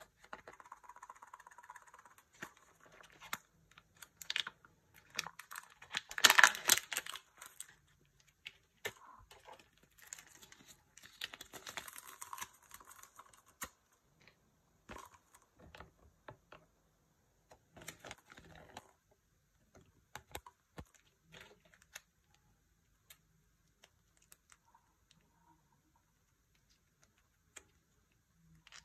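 Hands tearing and crinkling the foil wrapper of a Kinder Joy egg, loudest a few seconds in, with paper and plastic rustling in short bursts. In the second half, only sparse small plastic clicks as a little plastic toy is fitted together.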